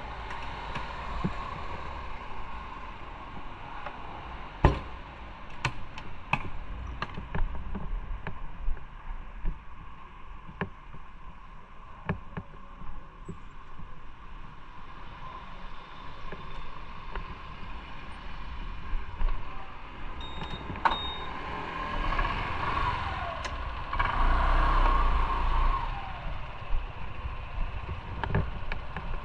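Motorcycle on the move as heard from the bike: engine and road noise with a low rumble and scattered sharp knocks, growing louder for a few seconds past the two-thirds mark.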